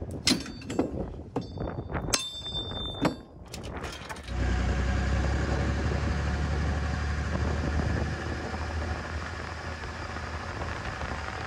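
A chain load binder being levered tight with a cheater bar: a series of sharp metal clicks and knocks with chain clinking. About four seconds in it gives way to the steady low rumble of a pickup on the road, towing a flatbed trailer loaded with an old GMC truck.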